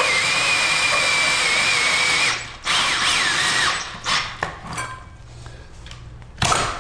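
Cordless drill spinning a 4-inch hole saw through a PVC toilet closet flange, running steadily and stopping about two seconds in, then a second short burst as the motor speeds up and winds down. After that come light clicks and knocks from cut plastic pieces being handled, with one sharp knock near the end.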